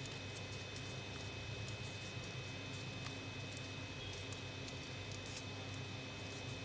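Faint crinkling and clicking of a sheet of origami paper as it is folded and creased by hand, over a steady low hum and hiss.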